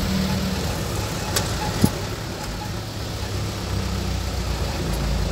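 Steady engine and road rumble heard from inside a moving car, with one short knock a little under two seconds in.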